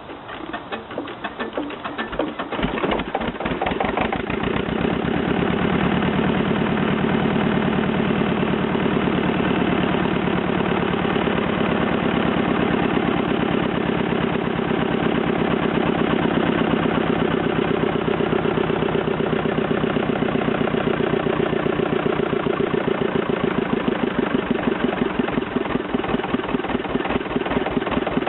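Petter AVA2 two-cylinder air-cooled diesel engine catching and picking up speed over the first few seconds, then running steadily: its first start after restoration.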